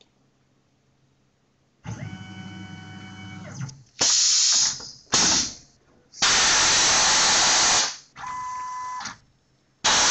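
Tormach PCNC 1100 CNC mill starting its program. About two seconds in, a steady machine whine with a low hum runs briefly. It is followed by several loud hissing spray bursts of varying length that start and stop abruptly, one of them with a steady tone.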